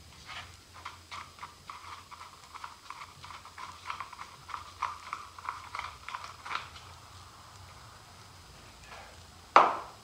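Light plastic clicks and rattles of hands working the plastic air filter cover and housing on a RedMax two-stroke edger engine, a quick run of them for the first several seconds, then one sharp knock near the end, the loudest sound.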